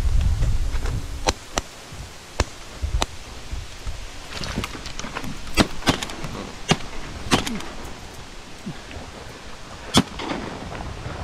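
A volley of shotgun blasts as several duck hunters fire at a flock coming in, about ten shots spread unevenly, the loudest near the middle and near the end. Wind buffets the microphone during the first second.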